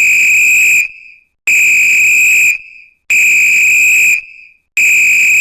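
A whistle blown in repeated long blasts, each about a second long at one steady high pitch, about every second and a half.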